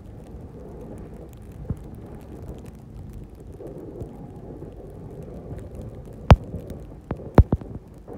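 Plow truck pushing snow with its blade: a steady low rumble of the truck and snow spilling off the blade, with a few sharp knocks in quick succession near the end, the first the loudest.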